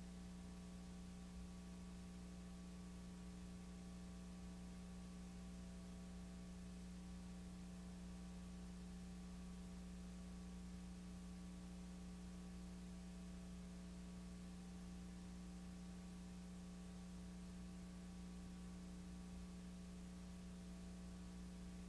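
Faint, steady electrical mains hum with a thin hiss, the background of a blank stretch of old videotape with no programme sound.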